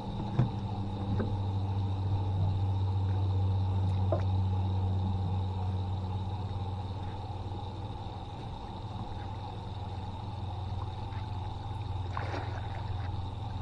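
A steady low mechanical hum, like a small motor running, easing off a little partway through. A few faint clicks and knocks sound over it.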